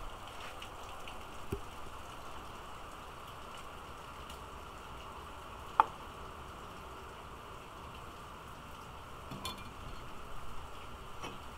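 Steady rain hiss in the background while a knife slices raw pig tail on a wooden cutting board, with a few faint knocks. A single sharp knock about six seconds in is the loudest sound.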